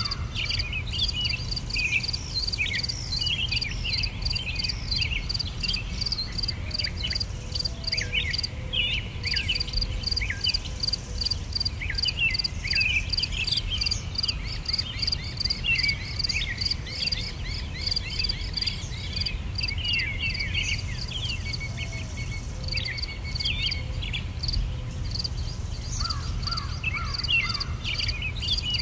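Nature ambience: insects chirring in a steady high pulse, about four beats a second, with many short bird chirps sweeping downward over it and a low steady rumble underneath.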